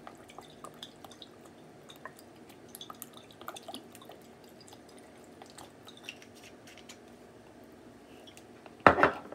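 Sauce dripping and splashing in small drops into a plastic mixing bowl, with light scattered clicks. A loud double knock comes near the end.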